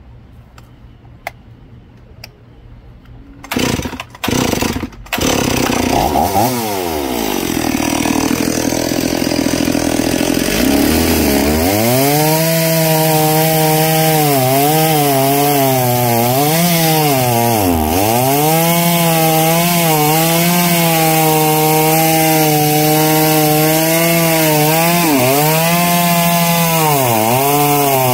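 Old two-stroke chainsaw firing up about four seconds in, revving unevenly for several seconds, then running at full throttle as it cuts into a pine trunk. The engine pitch sags several times as the chain bites in, then picks up again.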